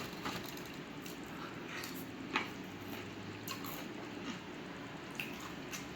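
Fried chicken being chewed close to the microphone: quiet wet mouth sounds with a few scattered small crunches and clicks.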